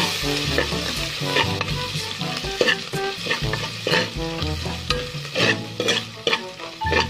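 Chopped garlic sizzling in hot oil in a pot while a spatula stirs it, with irregular scraping strokes against the pot.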